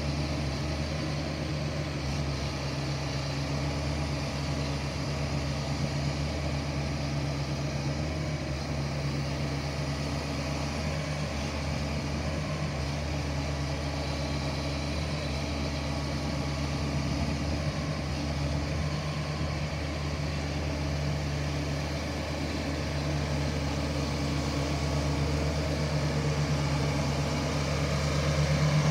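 CAT 580 forestry harvester's diesel engine running steadily, an even low hum that grows a little louder near the end.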